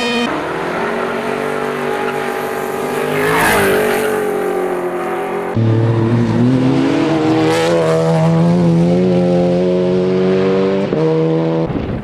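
Race car engines at full throttle in two shots. First a rally car passes at speed, its engine note swelling and falling away about three and a half seconds in. After a sudden cut, a GT race car accelerates hard on tarmac, its engine note climbing and then holding high, with a brief break near the end.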